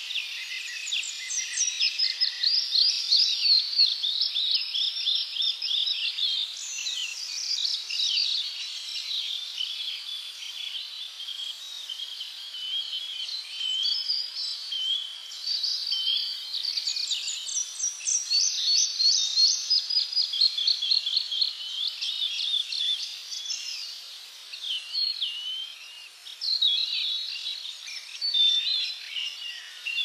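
Songbirds singing, several birds overlapping in a continuous chorus of quick chirps, trills and whistled phrases.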